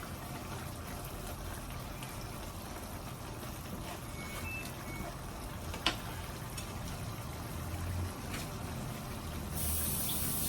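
A pot of sardines and baby bok choy simmering on the stove at the boil: a steady low bubbling, with a sharp click a little before six seconds in and a brief high hiss near the end.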